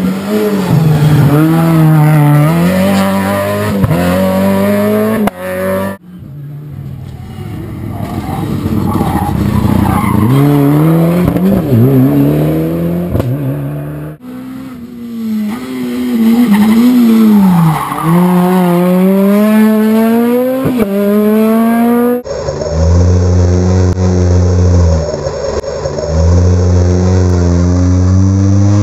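Rally cars taking a tight hairpin one after another, engines revving up and down as they brake, turn and accelerate away, with tyres squealing on the tarmac. The sound breaks off and starts again several times as separate passes follow each other.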